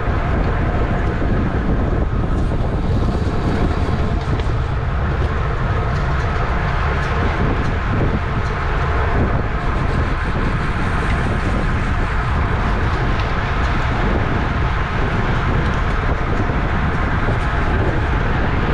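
Steady rumble of rushing wind and road noise from a racing bicycle ridden at speed, with no pauses or separate knocks.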